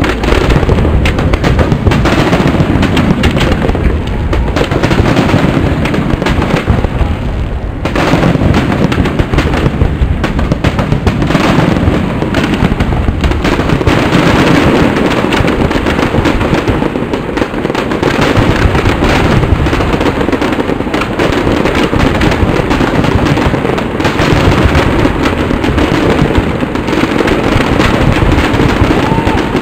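Dense, continuous barrage of aerial firework shells bursting and crackling, the bangs overlapping with no pause between them; a sudden heavy volley about eight seconds in.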